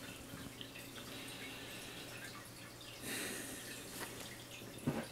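Faint clicks and rustles of a camera being handled, with a louder rustle about three seconds in and a sharp knock near the end, over a low steady hum.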